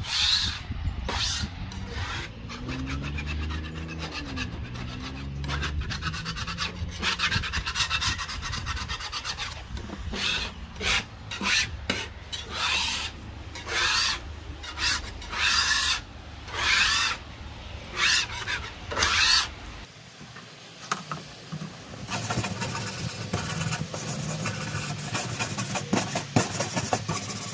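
Hand scraper scraping softened gum and grime off a painted wooden dresser top, in repeated strokes that turn louder and more separate, about one a second, from about ten seconds in. A steadier hiss takes over in the last few seconds.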